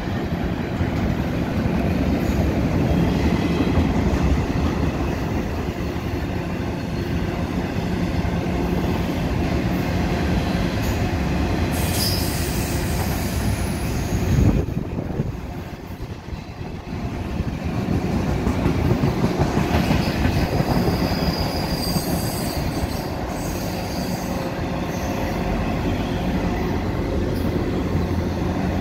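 Double-stack intermodal freight cars rolling past below with a steady rumble of wheels on rail. High wheel squeals rise out of it twice, about twelve seconds in and again around twenty seconds in. A single sharp knock comes about halfway through, followed by a brief quieter spell.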